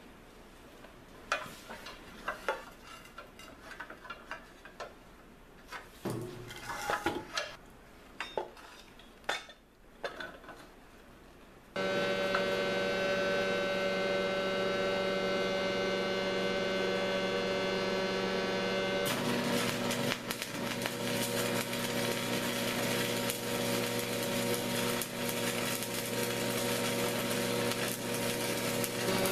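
Scattered light knocks and clatter of steel parts being handled, then about twelve seconds in a loud, steady electrical hum of several tones starts abruptly. From about nineteen seconds in, the crackling, frying hiss of a wire-feed welder's arc runs over the hum.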